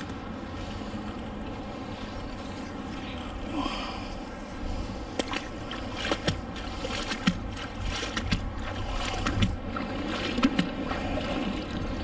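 A magnet-fishing find swished through canal water to rinse it, splashing, then scattered clicks and knocks as the metal is handled, over a steady low rumble.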